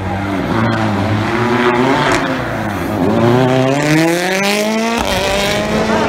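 Rally car engine at high revs under hard acceleration: the note dips, then climbs steadily for about two seconds before dropping abruptly about five seconds in.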